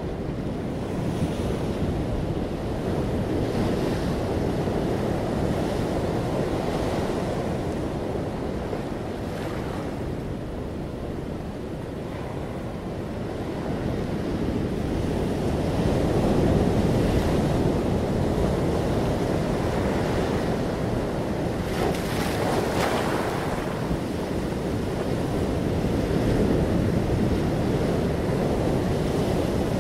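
Steady rushing noise that swells and eases slowly, with a brief brighter hiss about three quarters of the way through.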